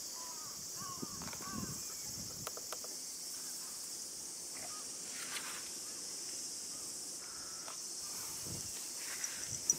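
A steady chorus of insects, a constant high hiss, with a few faint soft rustles and taps in the grass.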